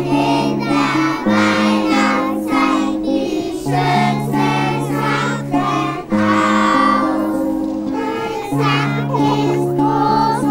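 A group of children singing together, accompanied by long held chords whose bass note changes every two or three seconds.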